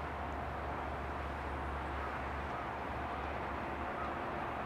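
Diesel railcar engine idling while the train stands at the platform: a steady low rumble with a thin, steady whine above it.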